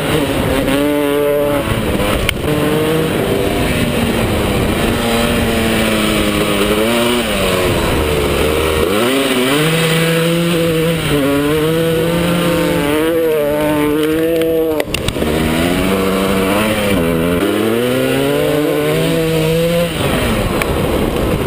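Dirt bike engine under hard riding, its pitch climbing and then dropping about six times as the rider goes up and down through the gears, heard from on the bike.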